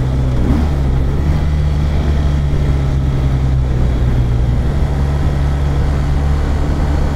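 Motorcycle engine running steadily at moderate road speed, with wind and road noise heard from the rider's seat. The engine note shifts slightly about four and a half seconds in as the speed eases and picks up again.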